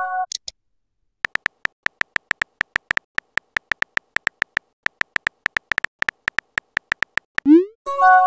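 Texting-app sound effects. A chime of several tones fades out at the start with a short high blip. Then comes a run of rapid keyboard tap clicks, about six a second, pausing briefly midway. Near the end a quick rising swoosh and another several-tone chime mark the message being sent.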